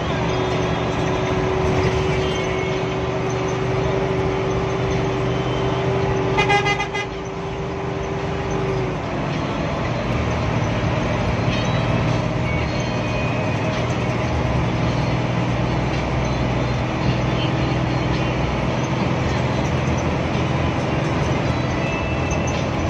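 Hino AK8 bus's diesel engine running under way, heard from the cab. A steady whine sits over it and fades out about nine seconds in. A short horn blast sounds about six and a half seconds in.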